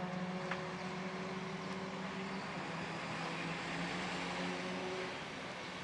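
Honda Civic WTCC touring car's turbocharged 1.6-litre four-cylinder engine at full racing speed, holding one steady, unchanging note that slowly fades.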